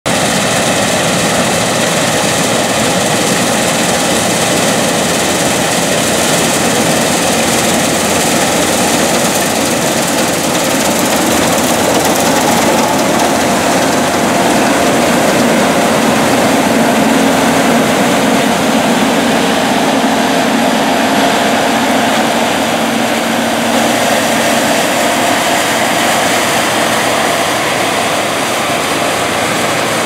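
New Holland CR8090 twin-rotor combine harvesting soybeans: its engine and machinery run loud and steady, with a faint hum over the noise.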